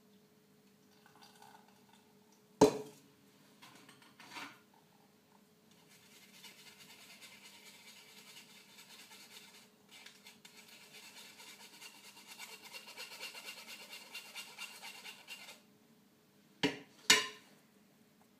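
A metal spoon scraping and pressing flour lumps through a fine wire-mesh sieve over a steel pot, a rapid scratchy rasp lasting about ten seconds, as the milk-and-flour mix is strained of lumps for pastry cream. A sharp metallic clink comes about two and a half seconds in, and two quick taps on metal near the end.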